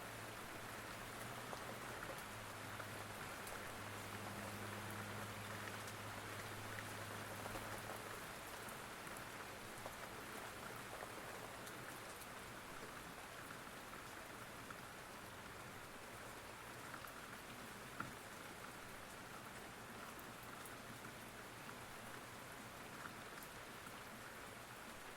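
Steady rain falling, an even hiss with scattered drop ticks and one sharper drip about two-thirds of the way through.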